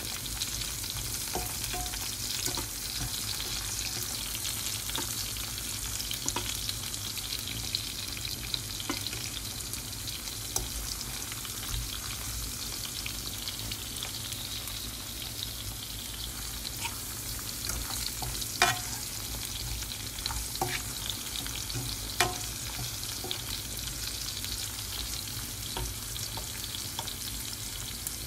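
Beef merguez sausages sizzling in hot fat in a frying pan: a steady crackling hiss, with a few sharper clicks in the second half.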